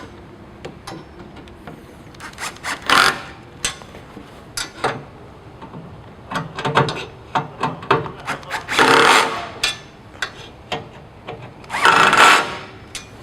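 Screws being fastened on a rectifier's metal front plate with a tool: scattered clicks and short rasping bursts, three longer ones about 3, 9 and 12 seconds in.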